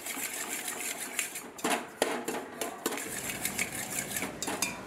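Perforated steel spoon scraping and clinking against the bottom and sides of a stainless steel pot in irregular strokes while stirring dry rice flour as it roasts.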